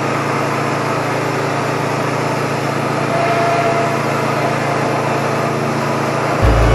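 Wood-Mizer LT15 portable band sawmill running steadily with a constant engine hum while its band blade makes a cut in eastern red cedar. Music comes in right at the end.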